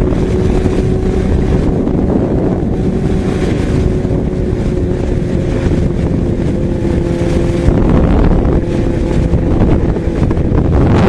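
Yamaha XJ6's inline-four engine cruising at a steady pitch, under heavy wind rush on the microphone; the engine note eases slightly about eight seconds in.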